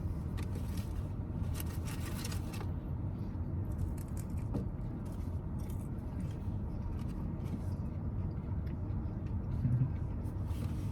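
Steady low rumble of a car, heard from inside the cabin, with a few faint light clicks and scrapes.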